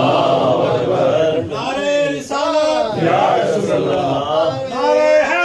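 A man's voice chanting a recitation into a microphone in long melodic phrases, the pitch rising and falling and held on drawn-out notes.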